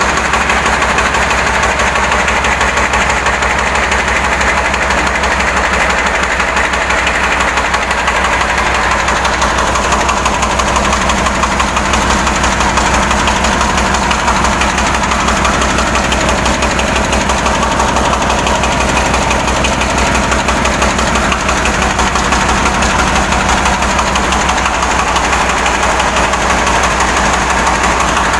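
Diesel engine of a two-wheel hand tractor running steadily at an even speed, with a rapid, regular firing beat.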